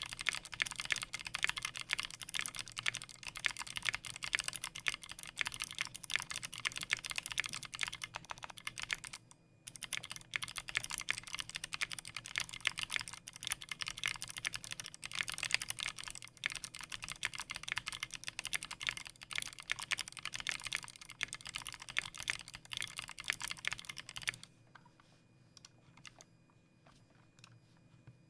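Fast typing on a keyboard, a dense run of key clicks that breaks off briefly about nine seconds in and stops a few seconds before the end, over a faint steady low hum.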